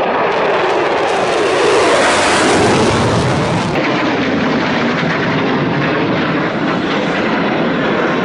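Jet aircraft engines sounding loud and steady as airshow jets fly past overhead, with a slight shift in the sound about four seconds in.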